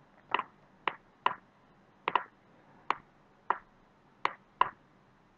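Computer mouse clicking: about nine short, sharp clicks at uneven intervals, a couple of them in quick pairs.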